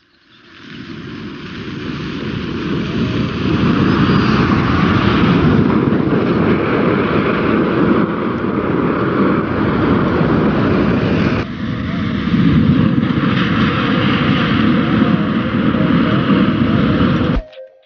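A drum packed with lit sparklers burning all at once as a fire jet: a loud, steady rushing hiss that builds over the first two or three seconds and cuts off suddenly near the end.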